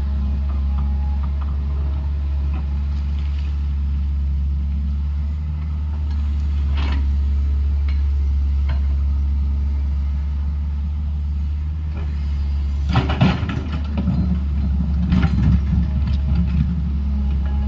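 Heavy earthmoving machine's diesel engine running steadily, with bursts of clanking and scraping about two-thirds of the way through and again near the end as it works soil or rock.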